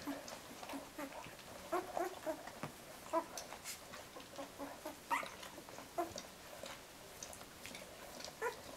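A litter of two-week-old puppies, eyes still closed, whimpering and squeaking in short, scattered squeals.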